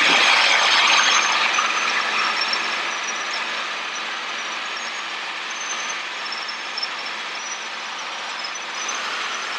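Steady in-flight cockpit noise of a Robinson R22 Beta II helicopter cruising, engine and rotor noise heard through the headset intercom with its deep low end cut off. It is a little louder for the first couple of seconds, then steady.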